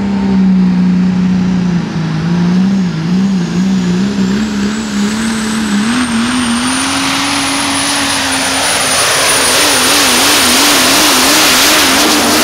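Super stock diesel 4x4 pickup pulling a sled. Its 460-cubic-inch, multi-turbocharged diesel engine runs hard at high revs, its note wavering up and down and climbing. A high turbo whistle rises and then holds steady.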